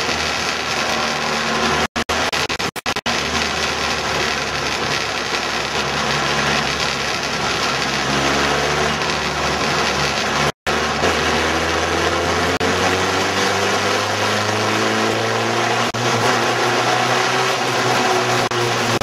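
Race cars' engines running at speed on a short oval, several cars at once, with engine pitch rising and falling as they rev and sweep past. The sound cuts out briefly a few times.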